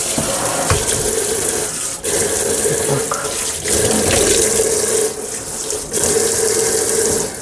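Water from a pedal-operated pull-out kitchen tap running into a sink as it is rinsed. The flow briefly drops out or changes about two seconds in and a couple more times.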